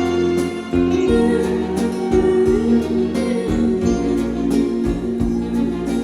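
Instrumental interlude of an enka karaoke backing track: a sustained melody line over chords and a steady beat, with no vocal.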